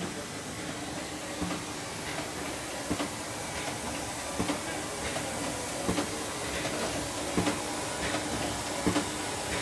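KartridgPak chub packaging machine running as it pulls film and clips chub packages. A steady hum and hiss of air runs under a sharp mechanical clack that repeats about every second and a half.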